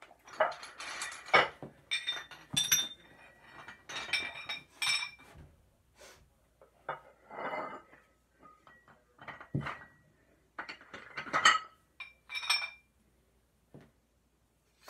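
A string of metallic clinks and clatters in irregular clusters, some ringing briefly, thinning out toward the end.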